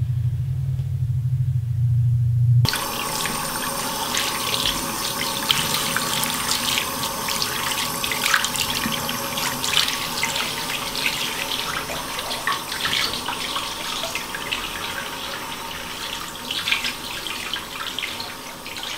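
A low rumbling hum cuts off abruptly about three seconds in, replaced by a tap running into a bathroom sink, water splashing irregularly over a person's wrists held in the stream.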